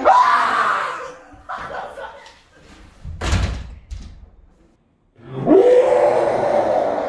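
A man screams loudly twice without words: a sharp yell right at the start and a longer held scream from about five seconds in. Between them, about three seconds in, comes a single heavy thud.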